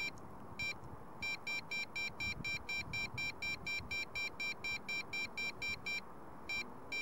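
Rapid high-pitched electronic beeping, about four short beeps a second, pausing briefly near the start and again near the end, over a faint steady hiss.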